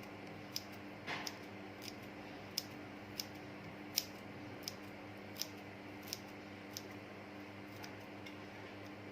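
Sparse light clicks and taps of kitchen utensils, about ten spread irregularly, over a steady low hum.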